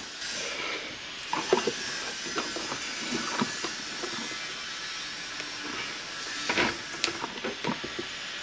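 A few short, sharp clicks of a tool cutting the old hose clamp off the fuel pump's hose, over a steady hiss.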